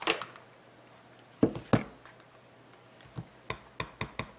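Two loud knocks of things set down on the table, then a rubber stamp on its block being tapped quickly and evenly against an ink pad, about six taps a second, to ink it up.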